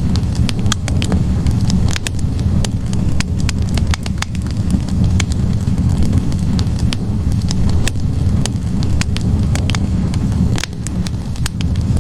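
Wood logs burning in a fireplace: frequent sharp, irregular crackles and pops over a steady low rumble of the flames.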